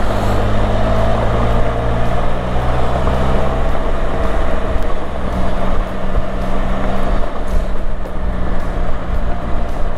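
Can-Am Spyder RT three-wheeler's Rotax 1330 inline-three engine running at a steady cruise, with wind and road noise on the camera microphone.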